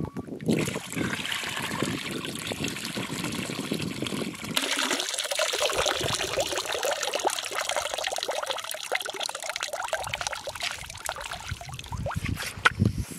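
Water trickling and splashing off the rim of an aluminium bowl as raw chicken pieces are rinsed by hand in it. A sharp knock sounds near the end.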